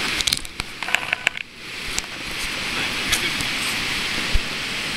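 Steady rush of river water pouring over a weir. In the first second and a half a cluster of irregular clicks and knocks comes through while the rush briefly drops away.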